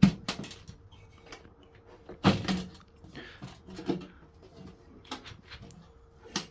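Scattered knocks and clicks of a gas boiler's casing cover being unclipped and taken off, the loudest knock about two seconds in.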